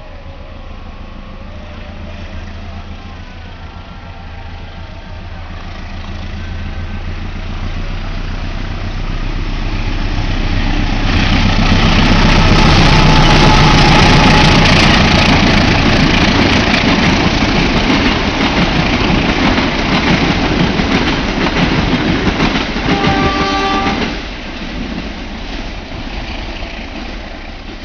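Argo Gede passenger train hauled by a diesel locomotive: the engine's low rumble grows louder as it approaches, then it passes close with wheels clattering over the rails and points. The noise drops sharply about 24 seconds in, as the last car goes by, and fades as the train moves away.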